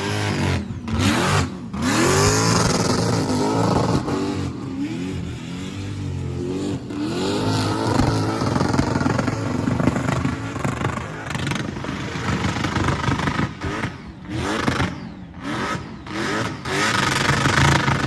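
Supercharged LS V8 revved hard over and over, its pitch climbing and falling with each rev and cutting out sharply several times between them, firing shots from the exhaust.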